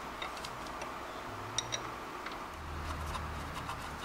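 Small metal clicks and two light ringing tings about a second and a half in, from bolts being fitted by hand into a steel brake caliper adapter bracket on a truck spindle, over a low steady hum.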